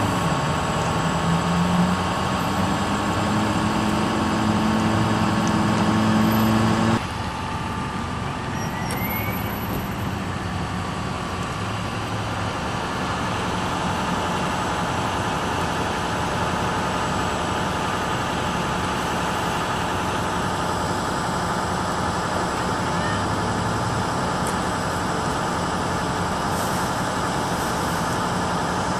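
Fire engine's engine running steadily to drive its water pump while a hose is in use, with a steady humming tone. About seven seconds in the sound drops suddenly to a slightly quieter, lower steady drone.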